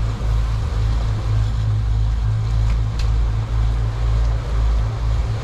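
Steady low rumble aboard a small fishing boat at sea, the engine and wind on the microphone swelling and dipping unevenly. A single sharp click comes about three seconds in.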